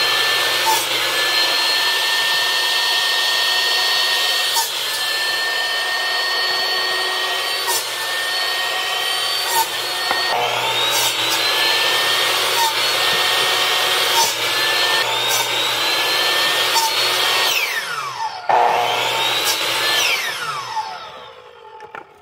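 Electric 10-inch chop saw running with a high motor whine as its blade cuts through wood, with a knock at each cut. The motor spins up again about ten seconds in, then near the end winds down twice with a falling pitch and stops.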